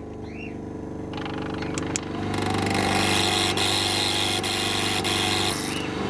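Victron MultiPlus Compact 24/1600 inverter humming steadily and growing louder as it carries a load of about 2 kW, more than its 1.6 kW rating, from a washing machine with its immersion heater on. About two seconds in a loud hiss joins the hum for a few seconds.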